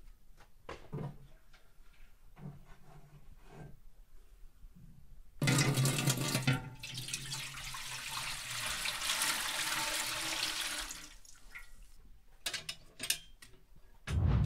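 Milk poured from a jug into a large aluminium pot: a splashing pour that starts suddenly about five seconds in and runs steadily for about five seconds. Light knocks of handling come before it, and a heavy thump near the end.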